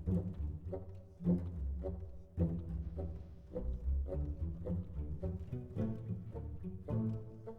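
Background music: a low, bass-heavy melody of separate notes, with brief breaks about a second and two and a half seconds in.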